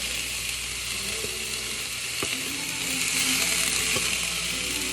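Rice and vegetables sizzling steadily in a hot pan for fried rice, with a few knocks of a utensil stirring against the pan.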